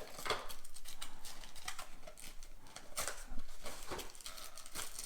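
Light rustling and irregular clicks and taps of packaging and small plastic parts being handled during an unboxing.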